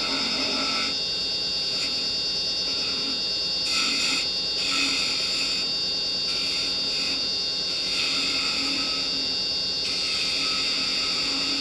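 Wood lathe running with a steady motor hum and whine, while a carbide chisel makes short intermittent cuts on a spindle, heard as several brief scraping bursts a few seconds apart.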